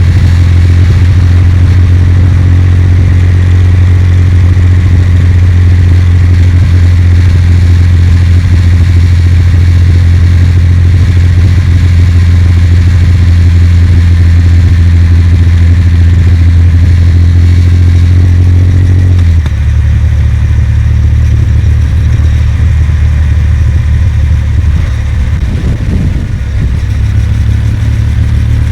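Kawasaki W800's air-cooled 773 cc parallel-twin engine running steadily under way, heard from on the motorcycle. About two-thirds of the way through, the engine note drops to a lower, rougher sound.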